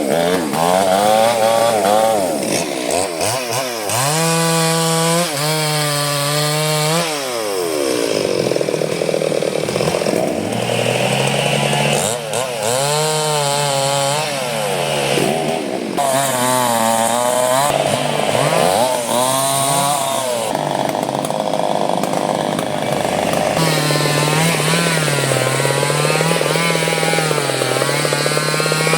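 Chainsaw running and cutting into durian wood, its engine pitch repeatedly dropping under load and climbing back.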